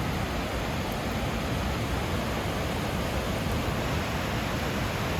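Heavy rain pouring down as a steady, even hiss, with no thunder in it.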